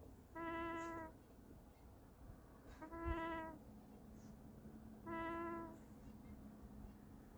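Silver Appleyard duckling snoring: three short calls, each held on one pitch, about two and a half seconds apart.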